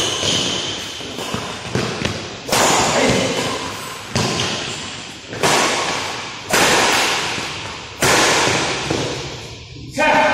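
Badminton racket strokes on a shuttlecock in a rally: about seven sharp hits roughly a second apart, each ringing out in the reverberant metal-walled hall. A voice calls out near the end, as the rally stops.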